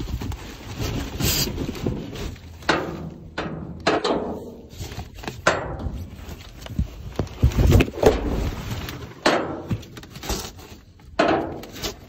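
Cardboard boxes, white board panels and foam packaging being shifted and dropped in a dumpster: irregular thumps, scrapes and rustling, a dozen or so separate knocks, the loudest about two thirds of the way through.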